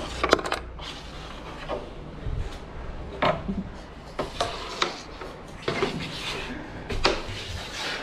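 Carrom pieces clacking on a powdered wooden carrom board: the flicked striker hits coins and knocks against the wooden frame. About a dozen sharp clicks come at uneven intervals, with the pieces rubbing as they slide between them.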